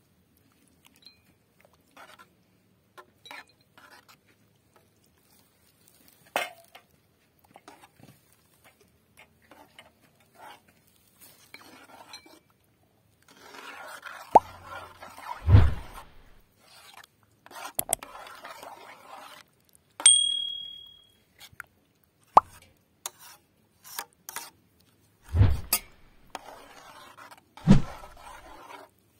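Metal spoon stirring a thick eggplant-and-kashk mash in a metal pot: soft plops of the mash, with the spoon clinking and scraping against the pot. Scattered light clicks at first, busier from about halfway, with a few heavier knocks and one short ringing clink.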